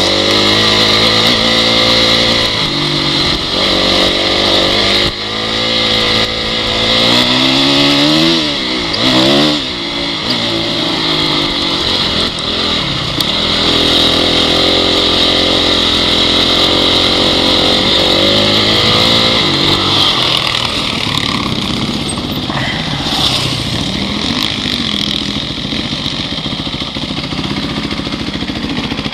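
Honda CRF dirt bike's single-cylinder four-stroke engine revving up and down repeatedly as it is ridden, with a steady high hiss over it. About twenty seconds in the revs drop and the engine runs lower and more evenly.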